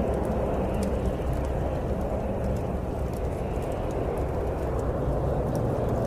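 Snowstorm wind blowing as a steady, dense rush that swells and eases a little, with faint scattered crackles from a bonfire.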